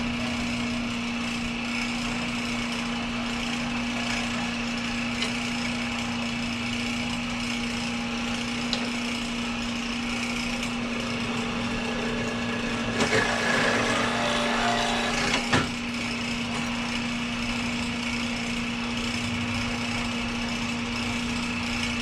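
Old workshop drilling machine's motor running with a steady hum. About halfway through, the cutter bites into a clutch lining for a couple of seconds with a rough cutting sound, drilling and counterboring a rivet hole, and this ends in a sharp knock.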